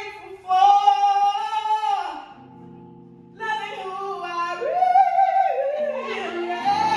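A woman singing a slow solo into a microphone over a quiet accompaniment, holding long notes. About two seconds in she pauses for roughly a second while the accompaniment's low held notes carry on, then she sings again.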